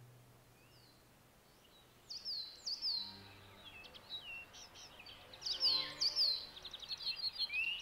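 Birds singing: repeated sharp down-slurred chirps and quick trills starting about two seconds in, over faint sustained musical tones. A low hum fades out at the start.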